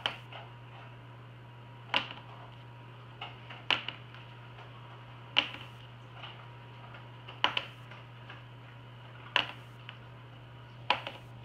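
Plastic marker flipped again and again onto a hard polished tabletop: about seven sharp clacks, roughly every two seconds, some of them doubled as the marker bounces or tips over.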